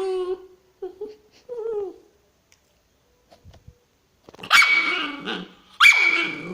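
Pet dog vocalising in anger. A drawn-out, whine-like sound fades out just after the start, followed by a few short whiny sounds. After a pause, two loud, harsh bark-like outbursts of about a second each come near the end, about a second and a half apart.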